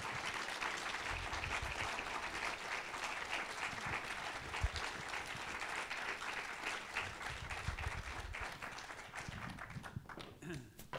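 Cinema audience applauding, a dense steady clapping that thins and dies away about ten seconds in.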